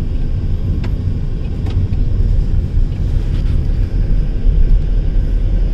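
Steady low road and engine rumble inside a moving car's cabin, with a few faint ticks.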